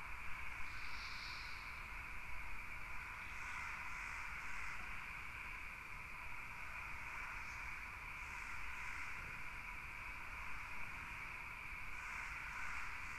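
Faint night ambience: a steady hiss with soft, high insect chirps in short groups of two or three now and then.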